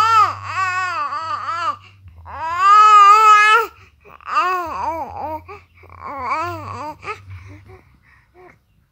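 Young infant fussing and crying in four wavering bouts of short rising-and-falling wails, the longest and loudest a little past two seconds in, dwindling to small whimpers near the end.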